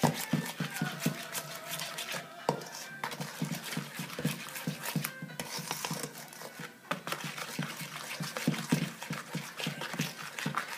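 A spatula stirring and scraping a thick mixture of butter, shortening and sugar in a stainless steel mixing bowl. It makes quick, irregular scrapes and taps against the metal.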